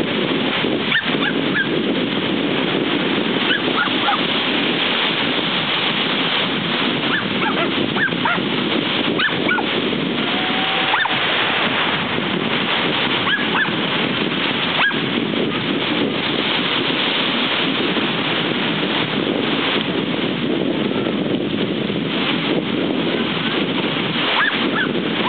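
Small waves washing onto a sandy beach with wind on the microphone, a steady rushing noise, with a few brief faint high calls scattered through it.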